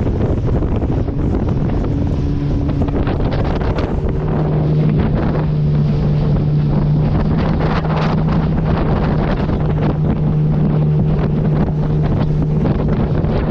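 Motorboat engine running at a steady speed, its hum growing stronger about four seconds in, with wind buffeting the microphone.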